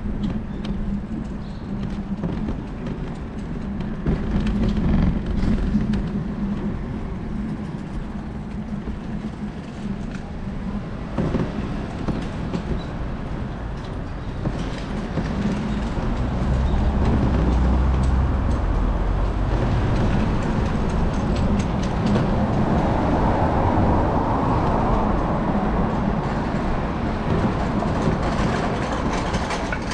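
A train running past on the tracks over steady city street noise, growing louder about halfway through and staying loud for several seconds.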